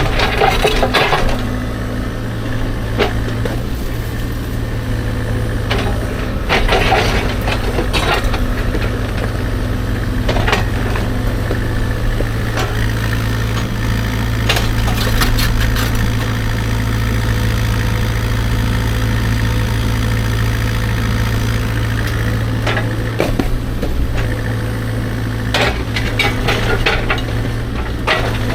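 CAT 305.5 mini excavator's diesel engine running steadily while the bucket scrapes and clanks against rocks and dirt in irregular bursts.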